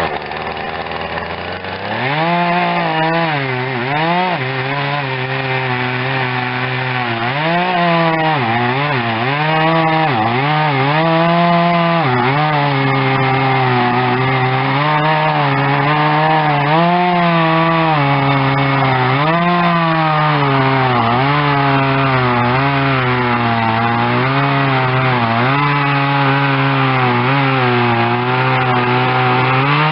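Husqvarna 236 35cc two-stroke chainsaw revving up to full throttle about two seconds in and cutting through wood, its engine pitch repeatedly dipping and recovering as the chain loads up in the cut.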